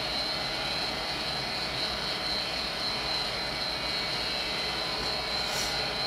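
Vintage Armstrong furnace running with its panel off: a steady rushing noise of its fans and motors, with a thin, steady high whine over it.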